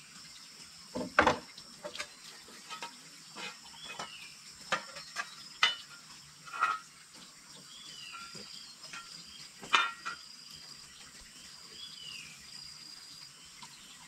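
Outdoor hillside ambience: insects make a steady high-pitched drone that breaks off now and then, and a bird gives short falling calls every couple of seconds. Scattered knocks and clinks from someone walking and handling a carried load break through, the loudest about a second in and again near ten seconds in.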